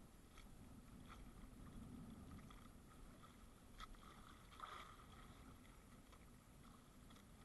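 Near silence: a faint low wash of water and wind around a small outrigger boat at sea, with a few soft ticks.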